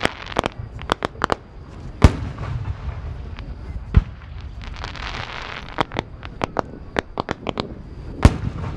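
Aerial fireworks shells bursting: a string of sharp bangs and pops, the biggest about two, four and eight seconds in.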